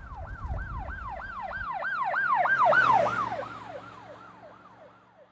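Emergency vehicle siren wailing in a fast yelp, about three rising-and-falling sweeps a second. It swells louder to a peak about three seconds in, then fades away.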